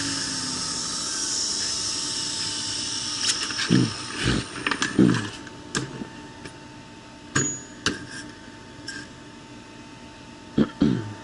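Belt grinder winding down, its pitch falling in the first second, then a faint steady whine with several short squeals that drop in pitch and scattered clicks. The crowned steel tracking wheel has overheated, expanded and seized on its bearing, the inner race rubbing on the wheel.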